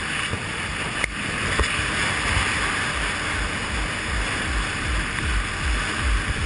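Sea-Doo jet ski running through choppy water, its engine under a steady rush of spray and wind noise.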